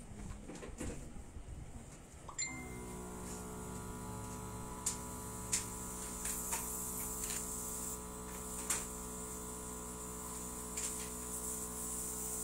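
Small airbrush compressor switching on about two seconds in and running with a steady hum, with a high hiss of air from the airbrush. A few sharp clicks sound over it.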